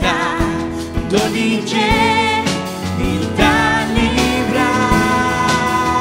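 Live worship band: voices singing a Papiamentu song in harmony, with vibrato, over acoustic guitar and keyboard, with a steady beat of low thumps about once a second.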